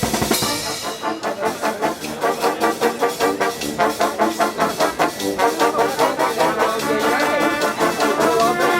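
A brass orchestra playing a quick, rhythmic passage, trumpets and trombones together over percussion, with a cymbal crash at the start.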